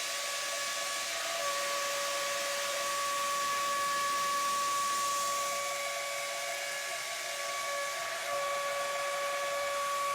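A machine running steadily: a constant whine over a hiss, the whine dropping out briefly twice.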